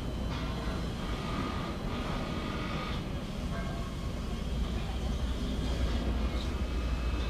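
A heavy machine running with a steady low rumble, with faint brief higher tones over it.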